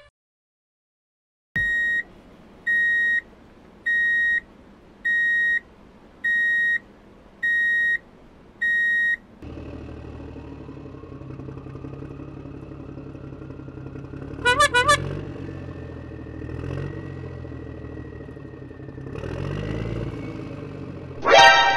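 Seven short electronic beeps at an even pace, about one every 1.3 seconds. Then a cartoon truck engine sound effect runs steadily, with a whine that slowly rises in pitch and a brief squeaky warble about two-thirds of the way through.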